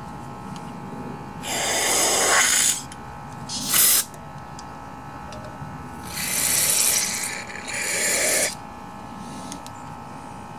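Aerosol carburetor cleaner sprayed through its red straw into a small-engine carburetor, in four hissing bursts, the longest just over a second.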